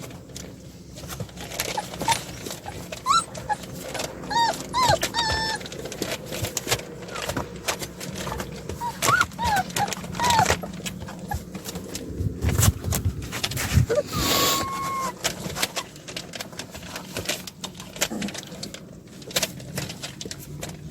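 Young puppies whimpering in short squeaky whines that rise and fall, among many clicks and scuffling knocks, with one louder, longer cry about fourteen seconds in.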